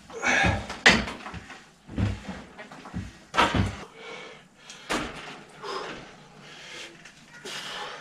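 Irregular clunks, knocks and rattles of a bicycle frame and wheels being handled and turned in a workshop repair stand, with a few sharper knocks among them.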